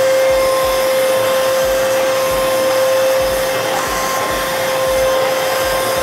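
Arnica Vira water-filter vacuum cleaner running steadily in dry-cleaning mode, its carpet-and-floor nozzle being pushed over a pile-free flat-weave rug. It is a steady rush of air with a constant whine over it.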